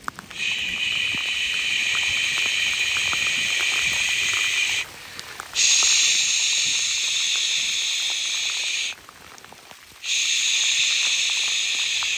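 Heavy rain falling on a lake, a loud steady hiss that cuts out abruptly twice, about 5 and 9 seconds in, leaving only the softer patter of single drops before it comes back.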